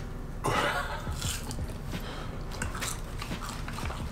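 Close-up chewing and biting of fried chicken sandwiches, with irregular crunchy clicks and a louder crunch about half a second in.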